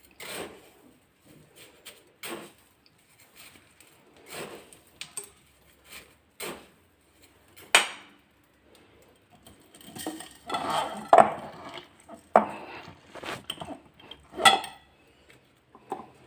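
Irregular knocks and clinks of a glass jar as salt-stuffed lemons are pushed down and packed into it for preserving, coming more thickly in the second half.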